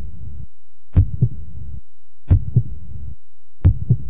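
Heartbeat sound: a slow lub-dub, a pair of low thumps about a quarter second apart, repeating about every second and a third, with a steady low hum between the beats.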